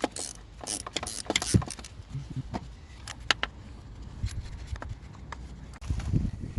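Irregular metallic clicks and clinks of hand tools at work in a car's engine bay, dense for the first two seconds and then more spaced out. A low rumbling noise rises near the end.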